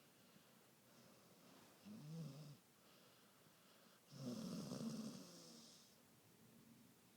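A dog snoring faintly: a short snore about two seconds in, then a louder, longer snore with a breathy hiss about four seconds in.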